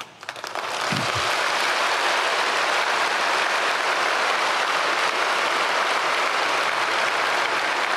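A large congregation applauding in a big auditorium. The clapping swells up within the first second or so, then holds steady.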